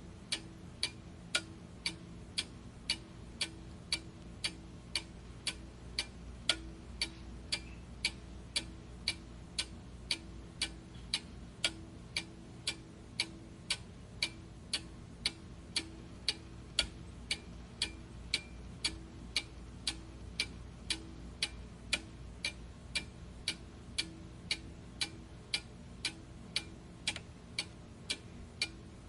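Steady, evenly spaced ticking that runs on without a break, over a faint low hum.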